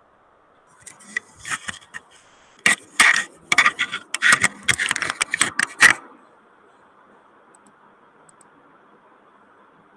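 A rapid run of loud, sharp clicks and clinks with a little ringing, clattering for about five seconds and then stopping, leaving a faint steady hiss.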